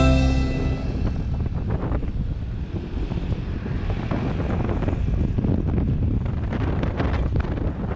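Wind buffeting the microphone on a moving scooter, over a steady low rumble of engine and road.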